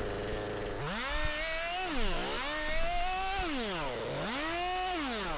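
Gasoline chainsaw revving up and down three times while limbing a felled tree.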